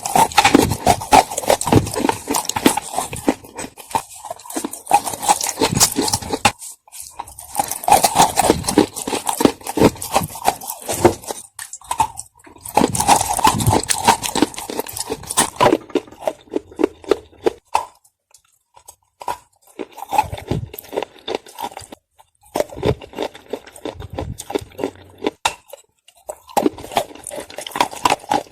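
Close-miked crunching and chewing of clay (edible dirt). Dense crackling bites come in bursts of a few seconds, with short pauses between them.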